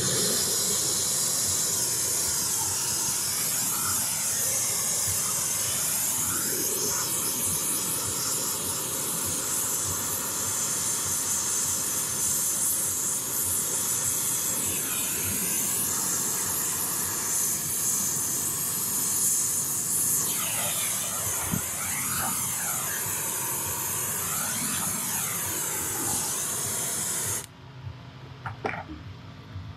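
Oxy-acetylene brazing torch flame hissing steadily while brazing a liquid line filter-drier onto copper tubing. The hiss has a few rising and falling sweeps and cuts off suddenly near the end as the torch is shut off.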